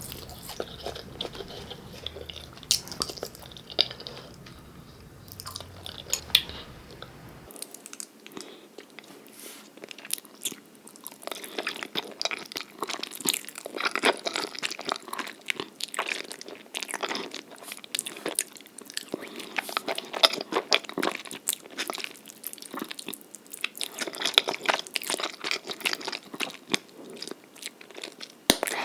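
Close-miked eating sounds: a person chewing and biting mouthfuls of jjajangmyeon (Korean black bean noodles), a run of short sharp mouth clicks and bites. The low hum under it drops out about seven seconds in, and the bites come more densely from about eleven seconds in.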